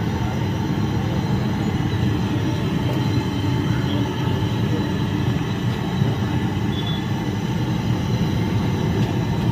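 Samosas deep-frying in a large kadai of bubbling oil: a steady sizzle over a constant low rumble.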